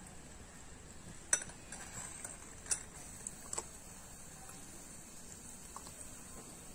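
Small balls of bread dough deep-frying in hot oil in a tiny pot: a faint steady sizzle, with three sharp clicks in the first half.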